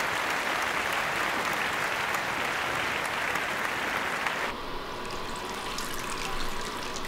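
Audience applause that cuts off abruptly about four and a half seconds in. It gives way to a quieter, steady trickle of a urine stream into a toilet bowl.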